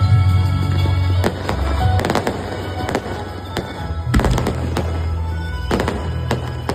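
Aerial fireworks of a display finale bursting in rapid clusters of sharp bangs, starting about a second in, with music playing under them.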